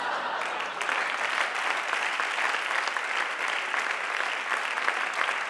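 Audience applauding: many people clapping at a steady level.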